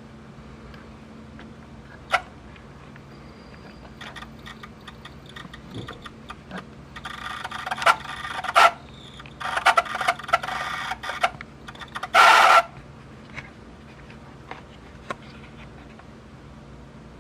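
Clicks, rattling and clattering from the cassette mechanism of a Pioneer CT-W840R dual tape deck, over a steady low hum, with a louder scraping burst near the end. The right-side deck struggles to play a good tape.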